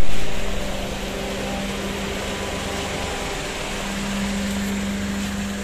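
Small Suzuki hatchback's engine idling steadily close by: a constant hum with an even hiss over it.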